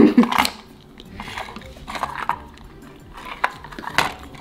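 Metal scissors snipping through a Furby's synthetic fur: several separate short cuts, the loudest at the start.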